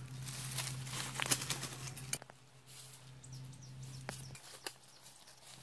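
Wire-mesh cage trap rattling and rustling as it is handled, with a run of quick clicks and scrapes in the first two seconds and a few single clicks later, over a steady low hum.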